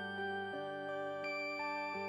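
Background music with bell-like mallet tones, glockenspiel or marimba-like notes changing every fraction of a second.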